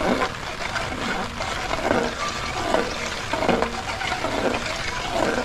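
Water sloshing in a cooking pot, in repeated strokes a little more often than once a second, as it is worked by hand.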